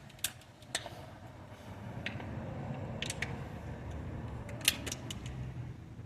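A few sharp clicks and taps in small clusters over a low steady hum.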